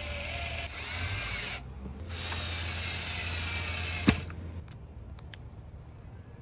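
A small power tool's motor runs in two stretches, the first stopping about a second and a half in and the second running for about two and a half seconds, with a sharp click near its end.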